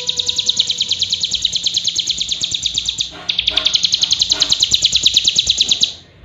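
Young ciblek gunung (cigun), a prinia, singing a fast, even trill of high, dry notes, about a dozen a second, with a brief break about three seconds in and a stop just before the end.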